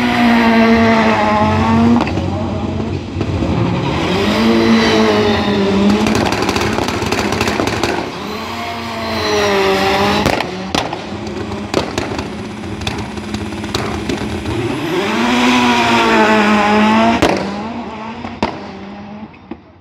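Rallycross race cars revving on the start grid, their engines rising and falling in pitch several times, with a few sharp cracks. Near the end the engine noise fades away as the cars pull off down the track.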